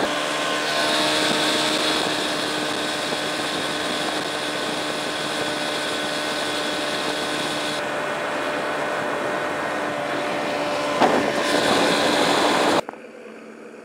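Vintage Mercury Mark 55 four-cylinder two-stroke outboard running steadily at speed, with wind and water rush over it. The sound cuts off suddenly near the end.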